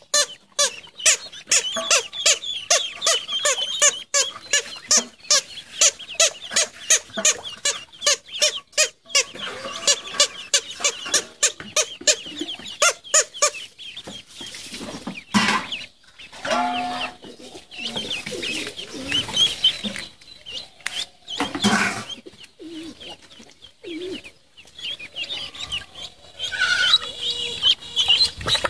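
A brood of ducklings peeping, many short high calls in quick succession, densest in the first half and sparser later.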